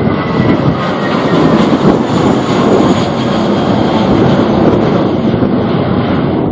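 Jet airliner's engines running loud and close as it passes on approach or landing, a dense, steady rush of noise, with gusting wind on the microphone.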